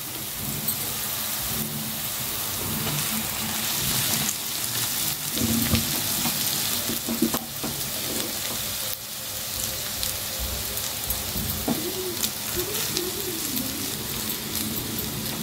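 Cabbage, onion and cooked rice sizzling steadily in a hot frying pan on high flame. A spatula scrapes and taps now and then as the rice is stirred in.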